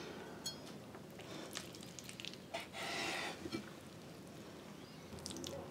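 Kitchen knife cutting through tender boiled beef on a wooden cutting board: soft squishy cuts with a few light ticks of the blade on the board, and one longer slicing stroke about three seconds in.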